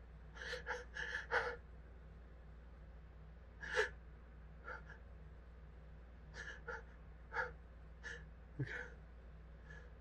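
A person's short, hitching gasps for breath, about ten irregular catches with a quick cluster of four near the start and the loudest about four seconds in: the hitching breaths of a nose irritated by sniffed pepper or spice, building toward a sneeze.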